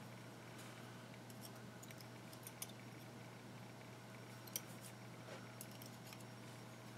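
Near-quiet room tone with a steady low hum, broken by a few faint clicks and soft rustles from handling a rebuildable dripping atomizer while cotton wick is pulled through its coils; the two clearest clicks come about two and a half and four and a half seconds in.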